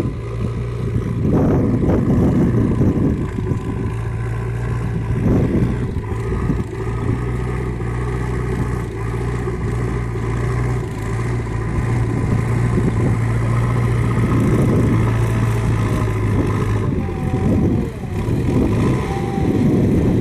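An engine running steadily with a low, even hum; the hum drops out about 17 seconds in while the rougher noise goes on.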